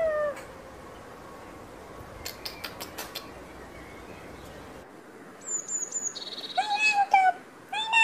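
Animal calls over a faint hiss. First a few sharp clicks, then a high whistle and a quick trill, then from about a second and a half before the end a run of high, wavering, meow-like calls in short pieces.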